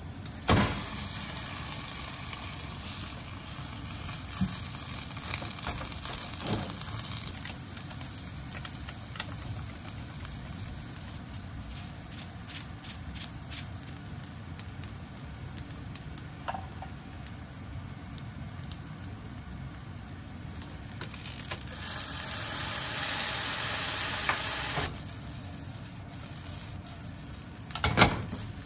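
Egg, ham and cooked rice stir-frying in a nonstick frying pan: a steady sizzle with a spatula scraping and tapping against the pan. Rice dropped in from a bowl lands with a loud hit about half a second in, the hiss grows louder for about three seconds later on, and the spatula knocks on the pan near the end.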